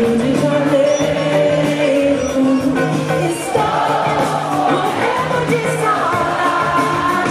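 Live samba band playing while a woman sings long held notes into a microphone, her melody rising higher near the end.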